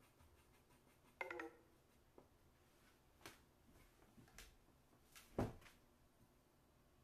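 Quiet drawing sounds as a chalk pencil works on Bristol board: a few soft taps and clicks, the loudest about five and a half seconds in. A brief pitched squeak comes about a second in.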